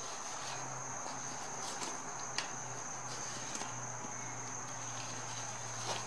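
Plastic tire lever sliding around a bicycle wheel's rim to unseat the tire bead, giving faint scrapes and a few small clicks. Under it runs a steady high-pitched whine and a low hum.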